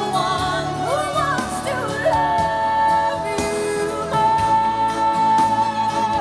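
A vocal ballad played back through B&W CM6 S2 hi-fi loudspeakers. The singer slides through a short run, then holds long notes over a steady band accompaniment.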